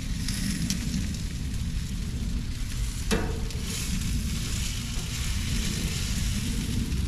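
Chicken quarters sizzling on a gas grill as they are handled with metal tongs, with a sharp metal clack about three seconds in. A steady low rumble runs underneath.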